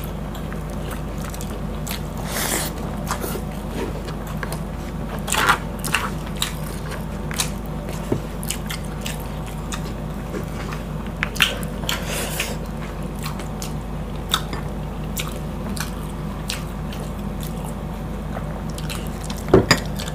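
Close-miked chewing and wet mouth smacks of two people eating boiled pork leg and rice by hand, with scattered irregular clicks over a steady low hum.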